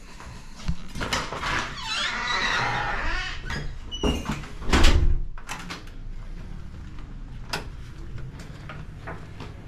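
A door being opened and passed through: clicks and knocks of handling, a squeaky scraping stretch about two seconds in, and a heavier thump about five seconds in.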